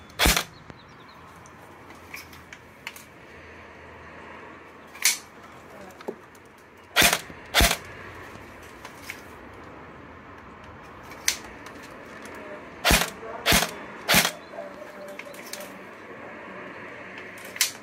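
A&Y AY-3M airsoft electric gearbox rifle firing single shots: about nine sharp cracks at irregular intervals of one to four seconds, over a steady background hiss.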